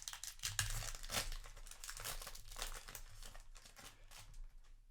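Foil booster pack wrapper being crinkled and torn open by hand, a dense crackling that thins out toward the end.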